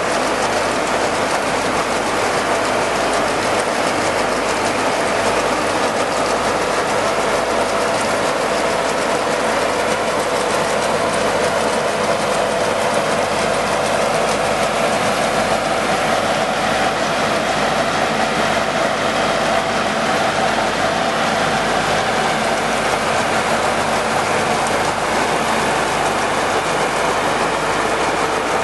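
5XZD-15AC grain cleaner and grader running with a yellow auger feeding grain into its hopper: a loud, steady mechanical rattle and hum that holds without a break.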